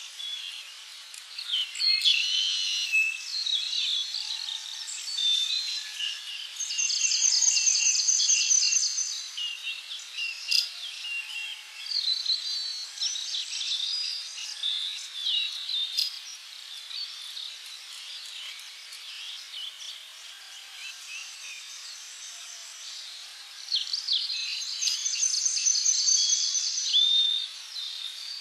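Several birds chirping and whistling together in short, overlapping calls. A fast, high trill starts about 7 seconds in and comes again near the end.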